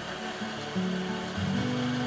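Background music of held notes that change pitch in steps, over a steady hiss.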